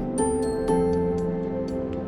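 Soft background music with held notes changing every half second or so.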